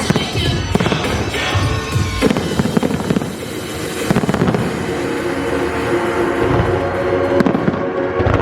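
Fireworks going off, many bangs and crackles in quick succession, over loud music played for the show.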